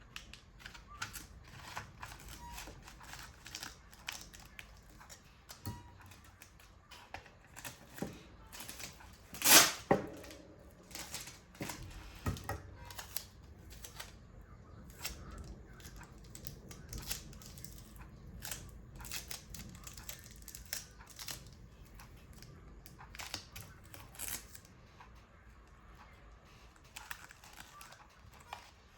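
Paper and small tools being handled at close range: scattered rustles, light taps and clicks, with one louder sharp knock about ten seconds in.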